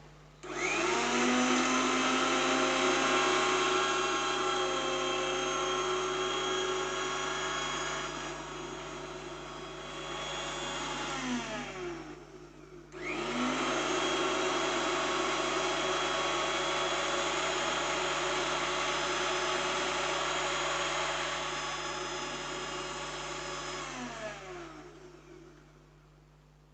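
Electric kitchen mixer grinder motor switched on, rising in pitch as it comes up to speed and running steadily for about ten seconds before winding down. It is switched on again about a second later, runs for about eleven seconds more, then spins down with falling pitch.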